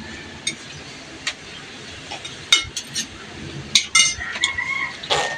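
Spoons and forks clinking now and then against plates and bowls during a meal, a handful of short separate clinks.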